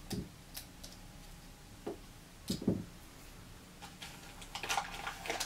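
Light knocks and clicks from a glass bottle and its plastic base and cap being handled and set against a desk. There are a few single knocks, the loudest about two and a half seconds in, and a quick run of small clicks and rattles near the end.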